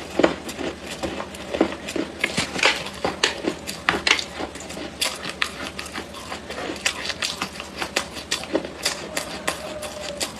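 Close-up chewing of clay: crisp crunches and clicks, several a second, in an uneven rhythm.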